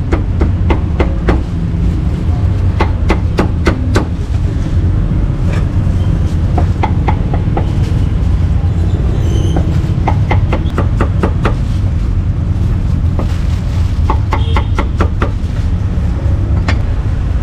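Steel meat cleaver chopping cooked meat on a thick wooden chopping block, in quick runs of sharp knocks with short pauses between, over a steady low rumble of street traffic.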